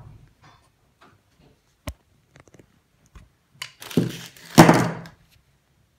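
Handling noises while a plastic coolant hose is worked onto a spindle fitting: light ticks, a sharp click about two seconds in, then two loud rubbing scrapes around four and five seconds in.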